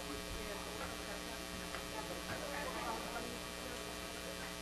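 Steady electrical mains hum with a stack of even overtones, under faint background chatter of people talking.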